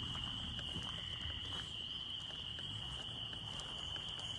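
Night chorus of crickets: a steady, unbroken high trill at one pitch, with a faint low rumble underneath.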